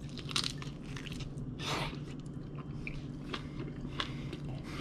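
A person biting into and chewing a piece of butter-dipped lobster tail meat: soft wet mouth clicks and smacks.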